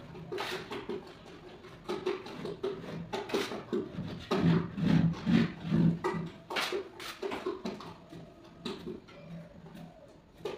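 Hand scraping on a gypsum board false ceiling during finishing: irregular rasping strokes, busiest and loudest around the middle.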